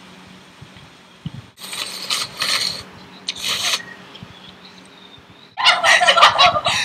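Two short rasping bursts of noodles being slurped, then a group of young women laughing loudly together from about five and a half seconds in.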